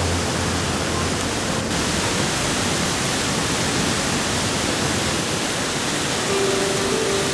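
Mountain torrent in flood, swollen by heavy rain and snowmelt: rushing water as a steady, dense roar of noise.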